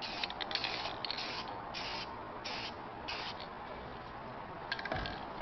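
Aerosol spray-paint can hissing in a series of short bursts, about seven of them. Near the end come a few clicks and a low thump.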